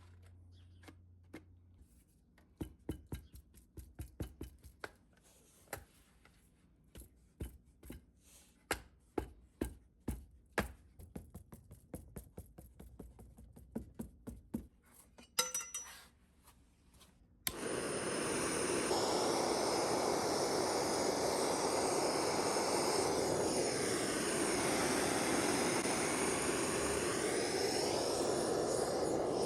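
Irregular knocks, taps and scrapes, then an abrupt switch about two-thirds in to a steady, loud rushing roar, consistent with a propane melting furnace's burner running.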